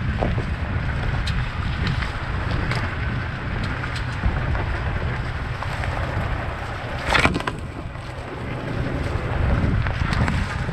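Toyota Tacoma pickup driving along a rough dirt trail: a steady low rumble of engine and tyres with scattered rattles and clicks, and one loud knock about seven seconds in as the truck jolts.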